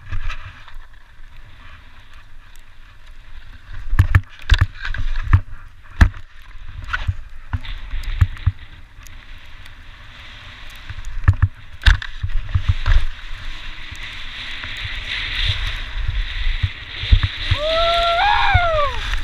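Skis sliding and scraping over packed spring snow, with wind rumbling on the GoPro's microphone and several sharp thumps as the skier rides over rollers and bumps. The snow hiss builds toward the end, and a short whooping call rises and falls near the end.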